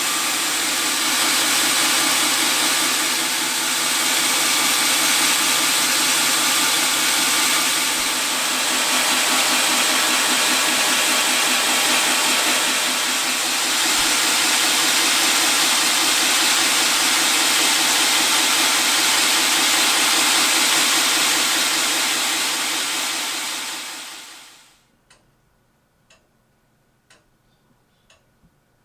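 Knife maker's belt grinder running with a steady hiss from its abrasive belt. A few seconds before the end it is switched off and dies away over about a second, leaving a clock ticking about once a second.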